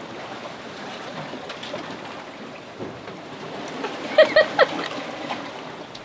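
Steady rush of water and wind around a sailboat under way at speed. About four seconds in come three short high-pitched vocal sounds in quick succession.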